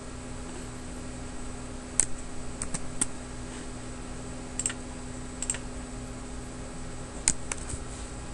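About eight sharp clicks from a computer keyboard and mouse, scattered irregularly, over a steady electrical hum and hiss.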